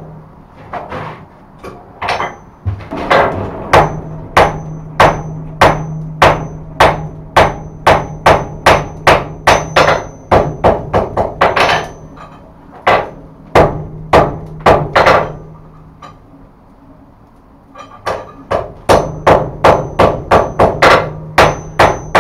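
Hand hammer striking a hot forge-welded billet of scrap steel and wrought iron on an anvil, about two to three blows a second, some with a high ring. The hammering stops for two or three seconds about two-thirds of the way through, then resumes.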